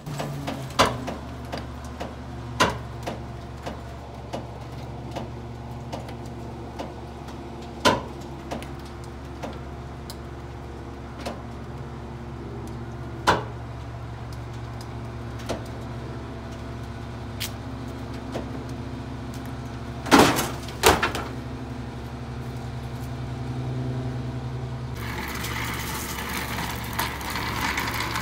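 Rear-loader garbage truck's engine idling steadily, with scattered sharp knocks and clatters, the loudest a pair about twenty seconds in. A rougher rattling noise rises near the end.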